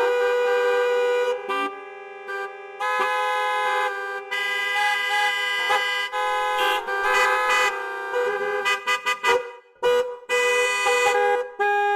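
Vehicle horns honking over and over: long held blasts alternating with runs of short, quick toots.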